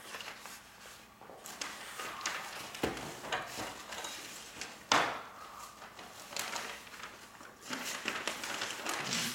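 Handling sounds: paper rustling in short stretches, with a few sharp knocks, the loudest about five seconds in.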